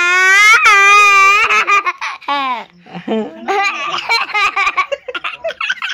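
A small child's long, loud, high-pitched squeal that rises slightly in pitch, breaking after about a second and a half into bursts of giggling laughter.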